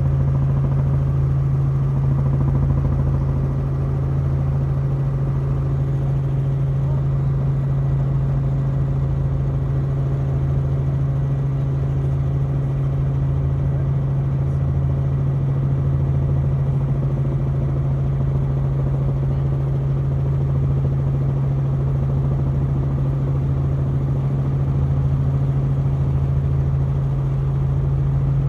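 Helicopter running with a steady, loud, low drone, and a lower hum under it that wavers slowly.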